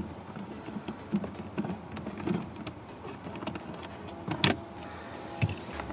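A Torx 15 screwdriver is backing a screw out of a plastic dashboard trim panel. There are faint scattered clicks and scrapes of the tool, and a sharper click about four and a half seconds in.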